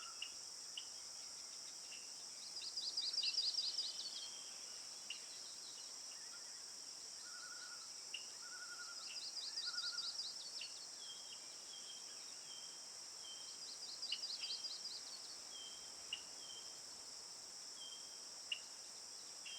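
Outdoor nature ambience: a bird sings a fast trill three times, several seconds apart, with scattered short chirps and calls in between, over a steady high-pitched hiss.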